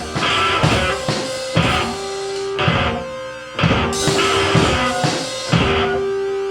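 Rock music with guitar and drum kit, a heavy accented hit landing about once a second under sustained notes.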